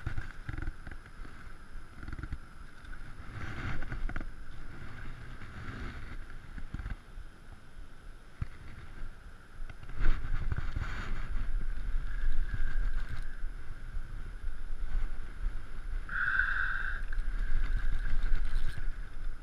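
Wind rumbling on the microphone at the river's edge, stronger from about halfway through, under a steady high-pitched tone that swells briefly near the end.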